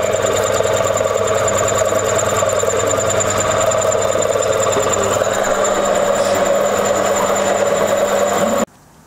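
Milling machine's end mill cutting a block of 6061 aluminium billet: a steady machining sound with a high steady tone over it, cutting off suddenly near the end.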